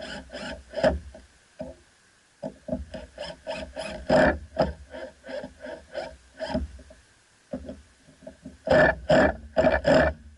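Power drill driving 3-inch deck screws through a plywood top piece into a wooden dowel. The motor runs in short, stop-start bursts with a couple of brief pauses, and the loudest bursts come near the end.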